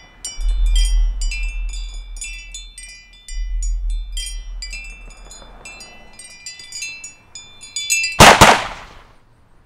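Film score: a quick run of high bell-like chime notes over long low bass notes, ending about eight seconds in with one very loud noisy hit that dies away within a second.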